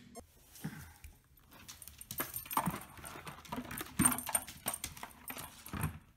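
Dog with its head stuck in a plastic jack-o'-lantern candy bucket, the bucket knocking, rattling and scraping on a hardwood floor as the dog moves. The knocks and rattles come in a quick irregular series from about two seconds in.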